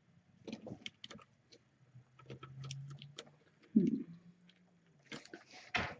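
Small plastic clicks and ticks as a DDR4 SO-DIMM laptop RAM stick is handled and pressed into its motherboard slot, going in stiffly. A faint low hum runs through the middle, and a short low voice-like sound comes just before four seconds in.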